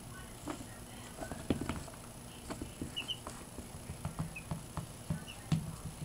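Baby chicks moving on a rug beside a person's hand: light, irregular tapping and pattering, with a few faint short peeps.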